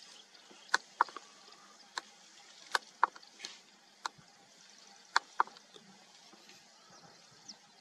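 African elephants pulling up and tearing grass as they feed: a series of about eight sharp, irregular snaps over a faint hiss.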